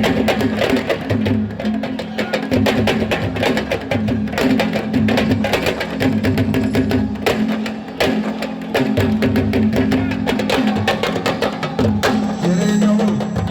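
Sabar drums played in a fast, dense rhythm of sharp strokes, over a low sustained tone.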